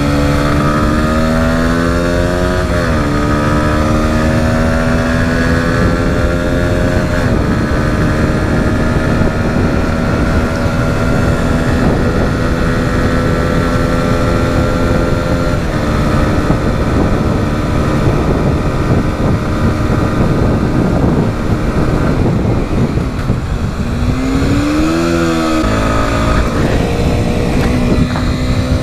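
Motorcycle engine pulling up through the gears, its pitch climbing and then dropping at shifts about three and seven seconds in, then holding steady at cruise, with a short rev that rises and falls near the end. Wind rushes over the microphone.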